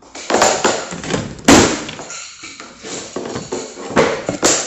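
Vinyl flooring planks being fitted and knocked into place: a run of irregular knocks, taps and scraping, with one sharp, loudest knock about one and a half seconds in.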